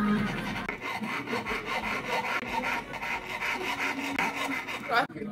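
Hand file rasping back and forth across a metal ring band in quick, even strokes. A brief rising swish near the end is the loudest moment.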